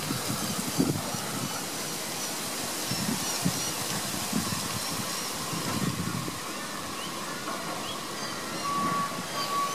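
Distant garbage truck idling under steady outdoor noise. Near the end its reversing beeper starts, a regular series of single-pitched beeps.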